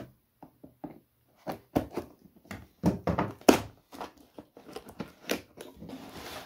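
A cardboard box being handled and its packing tape cut with a knife: a series of sharp knocks and taps on the cardboard, the loudest about halfway through, and a short scraping rustle near the end.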